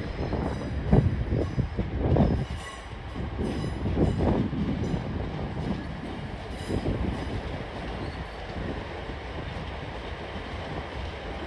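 A train moving through a station, its wheels knocking unevenly over rail joints and points for the first few seconds, then settling to a steadier rumble.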